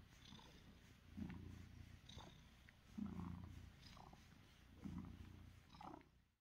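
Domestic cat purring quietly, a low rumble that swells and eases about once a second.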